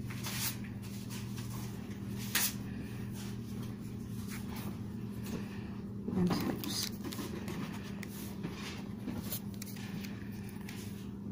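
Faint pencil strokes and light paper handling on a notebook page as a pencil is drawn across it, with a few soft taps. A steady low hum runs underneath.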